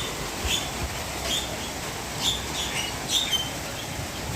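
A bird giving about seven short, high chirps at irregular intervals, over a steady background hiss.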